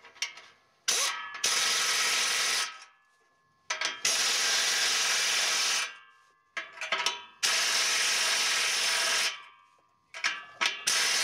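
Impact wrench running in bursts of about two seconds, each preceded by a few short trigger blips, with pauses between, driving down the nuts on a 2.5-inch exhaust clamp to crimp the pipe joint together.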